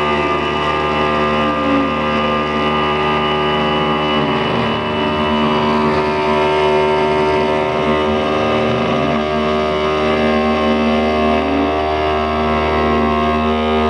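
CNC machine running: a steady motor whine made of several tones, with lower tones that glide up and down in pitch a few times as the drive motors change speed.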